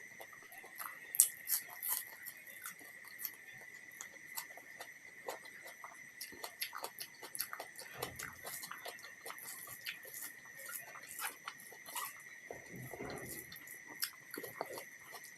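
Close-miked eating sounds: wet chewing, lip smacks and small mouth clicks at an irregular pace, over a steady high-pitched whine.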